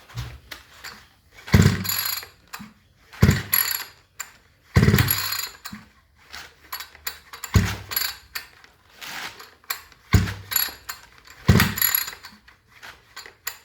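Recoil pull-starter of a 65 cc two-stroke multi-tool engine yanked about six times, each pull a short rasping burst with clicking from the starter mechanism. The engine does not fire: the flywheel feels stuck and turns only once or twice per pull.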